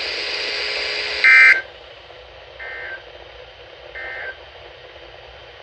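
Steady weather-radio static hiss, then three short bursts of screechy two-tone Emergency Alert System data, about a second and a half apart, the first the loudest. These are the EAS end-of-message bursts that close the tornado watch broadcast.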